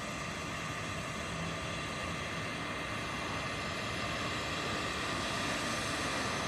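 Twin turbofan engines of a Cessna Citation M2 business jet running at takeoff power: a steady jet roar with a high whine, growing gradually louder.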